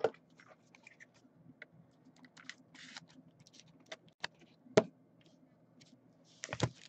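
Scattered light clicks, taps and scrapes of a trading card in a rigid plastic holder being handled on a desk, with a sharper tap a little past the middle and a short cluster near the end.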